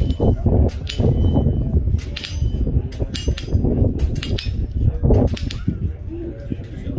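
Air rifle shots and pellets striking steel swinging targets: sharp cracks about once a second, some in quick pairs, stopping about five and a half seconds in, over a steady low rumble.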